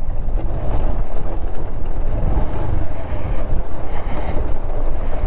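Motorcycle coming down a loose, rough dirt track with its engine kept running and the clutch and both brakes held: a steady, dense, rough rumble.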